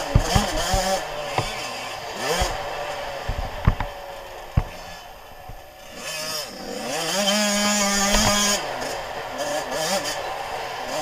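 Suzuki RM85's 85 cc single-cylinder two-stroke engine revving up and down as the motocross bike is ridden over rough dirt, with several sharp knocks in the first few seconds. The throttle eases off around five seconds in, then the engine climbs and holds high revs for about a second and a half before dropping off.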